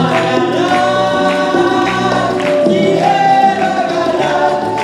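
A group of voices singing a song together, accompanied by acoustic guitar, with a few sharp percussive strikes such as tambourine hits.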